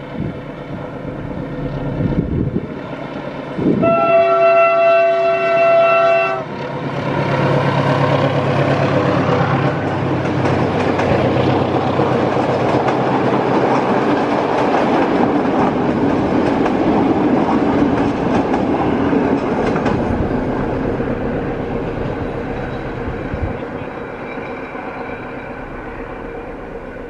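SM42 diesel locomotive sounds its horn once, a blast of about two and a half seconds starting about four seconds in. It then passes hauling its passenger coaches, the engine running and the wheels noisy on the track, loudest in the middle and fading as the train moves away.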